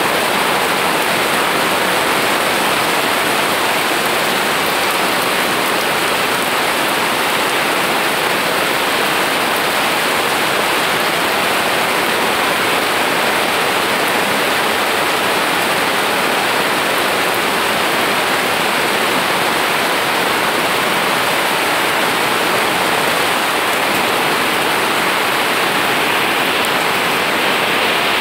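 Steady rain falling on leafy garden plants and paving, an even hiss that does not let up.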